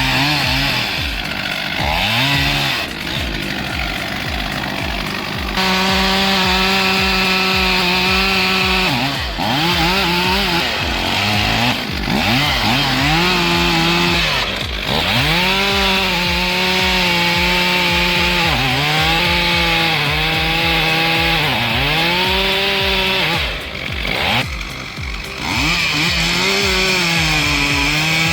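Chainsaw running at high revs and cutting wood, its pitch dipping again and again as the chain bogs down in the cut, then climbing back.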